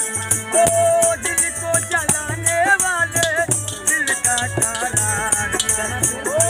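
Live Bihari Pamariya folk music: a man sings a wavering melody over a dholak beat with a low stroke about every 0.7 seconds, with harmonium and a bright, busy rattling percussion.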